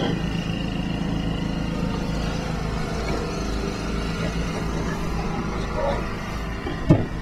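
A steady low hum runs throughout, with one sharp knock near the end.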